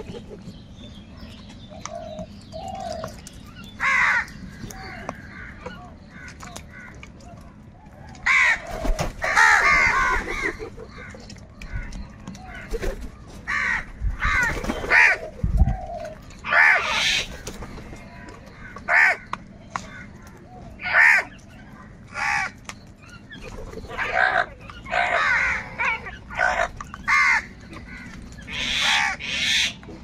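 A flock of house crows cawing: harsh, repeated caws, only one or two in the first several seconds, then coming thick and fast from about eight seconds in, several crows calling over one another.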